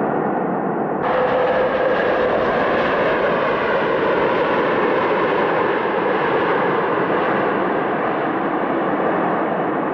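Steady roar of an airliner's jet engines. About a second in the sound abruptly turns brighter and a faint held tone rises briefly, then fades.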